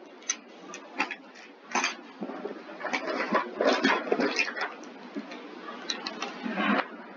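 Irregular clicks, knocks and rustling of small objects being handled: someone rummaging for a pen.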